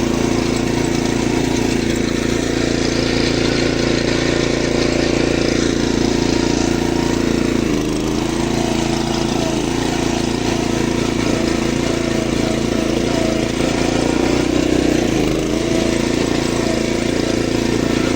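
Engine of a motorized machine for hauling oil palm fruit, running steadily, with brief dips in its note about eight and fifteen seconds in.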